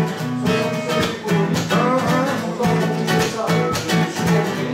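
Acoustic guitar strummed in a steady rhythm, playing an instrumental passage of a song.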